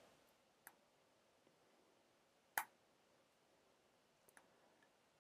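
Near silence broken by a few computer mouse clicks: one faint click under a second in, a clearer one about two and a half seconds in, and another faint one near the end.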